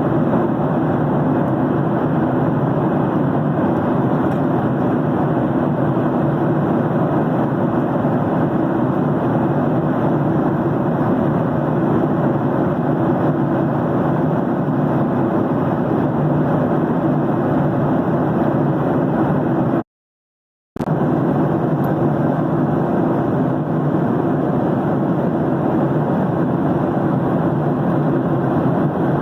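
Steady airplane noise: an even rushing hiss over a low hum, unchanging. It cuts out completely for about a second around two-thirds of the way through, then resumes just as before.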